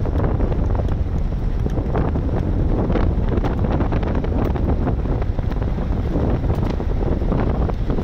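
Wind buffeting the microphone over a steady low rumble of a vehicle driving along a dirt road, with faint scattered ticks.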